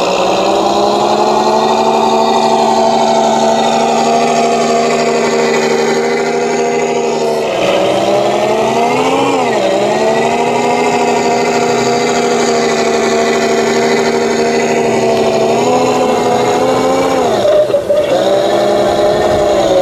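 Radio-controlled scale model GMC CCKW army truck running, a steady engine-like drone that rises in pitch and falls back about eight seconds in, and lifts briefly again near the end.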